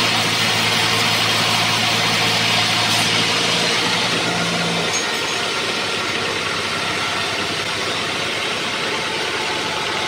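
Band sawmill machinery running steadily. A low hum drops away about halfway through, leaving an even running noise.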